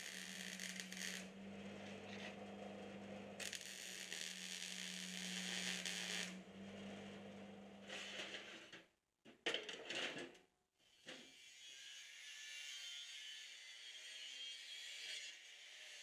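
MIG welder laying short welds on steel: hissing, crackling bursts of two to three seconds each that start and stop sharply, over a low steady hum that stops about six seconds in. After two abrupt cuts around nine and ten seconds, a steadier hiss follows from an angle grinder working the steel.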